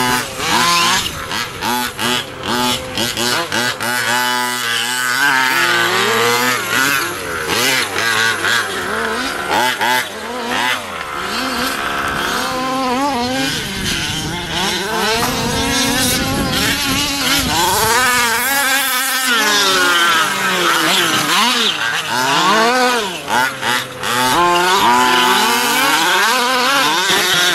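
Several large-scale gas-powered RC cars with two-stroke engines, revving up and easing off again and again, their buzzing pitches overlapping as they race.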